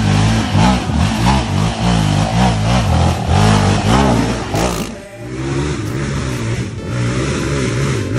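A sport ATV engine revs up and down over and over, about twice a second, as the quad churns along a muddy trail past the camera. About five seconds in the sound changes to a steadier ATV engine running.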